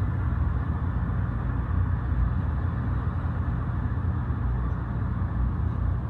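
Steady low rumble of a city street heard from high above, with a light rail train passing below; no single sound stands out.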